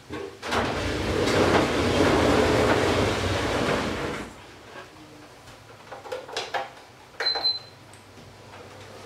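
A loud, steady rushing noise for about four seconds that stops abruptly. It is followed by a few kitchen clinks and knocks, and one sharp clink with a brief ring near the end.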